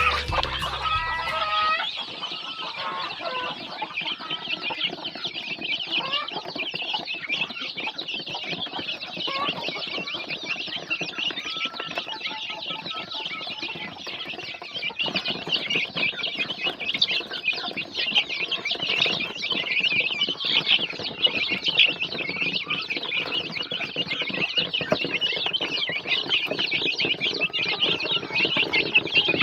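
A crowd of chicks peeping continuously, many short high-pitched chirps overlapping. Music ends about two seconds in.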